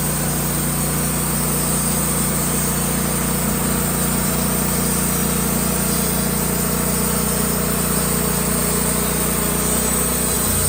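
Band sawmill's engine running steadily under way, its note dropping near the end.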